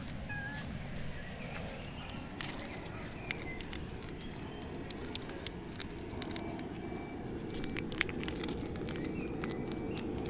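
Cats eating from a plate on the ground: scattered sharp clicks and crackles of chewing and of the plate, growing busier after the first couple of seconds, over a steady outdoor background with a few faint bird chirps.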